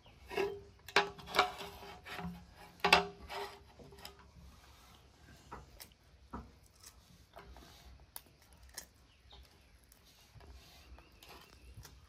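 Hands breaking apart and rubbing the kernels off a steamed corn cob on a plastic plate: a quick run of crackles and clicks in the first few seconds, then scattered small clicks as kernels are picked off.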